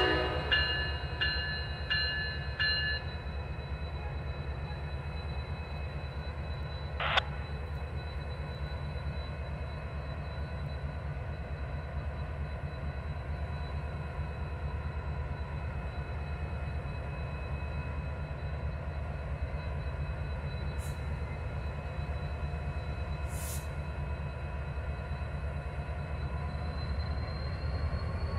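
Norfolk Southern freight's diesel locomotives running with a steady low rumble as the train starts to pull out. The locomotive bell rings a few times in the first three seconds, a single sharp clank comes about seven seconds in, and the engine pitch rises near the end as the units throttle up.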